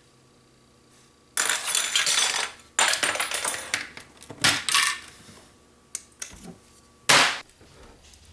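Small metal objects clattering and jingling in several loud rattling bursts, the last a short sharp one near the end.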